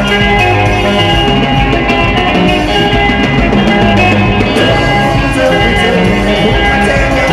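Live band music in the Zimbabwean dendera style, played steadily and loud by electric guitar, six-string bass guitar and drum kit.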